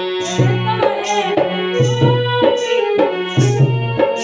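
Instrumental interlude of a Hindi folk song: a steady tabla beat under a gliding melody line, with no singing.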